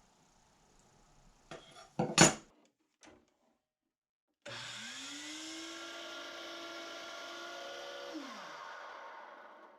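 A few sharp knocks about two seconds in. Then a woodworking power tool's motor switches on and spins up to a steady whine, runs for about three and a half seconds, and is switched off and winds down, its pitch falling.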